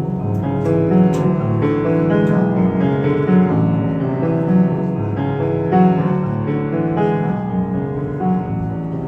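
Piano music, with a steady run of played notes.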